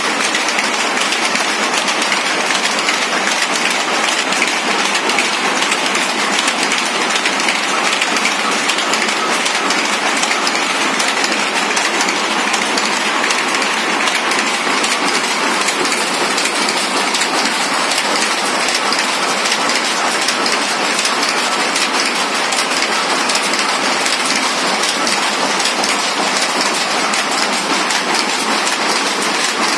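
Several power looms weaving at once, their rapid strokes blending into a dense, steady mechanical clatter.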